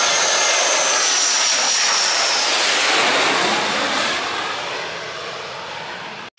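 A Sukhoi Su-27/30 fighter's twin AL-31F turbofan engines pass low overhead on landing approach. A steady jet roar carries a high whine that drops in pitch about two and a half seconds in as the jet goes by, and the roar then slowly fades.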